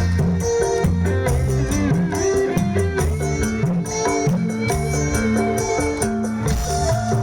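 Live dangdut koplo band playing an instrumental stretch: a steady drum beat with a running bass line and melody over it.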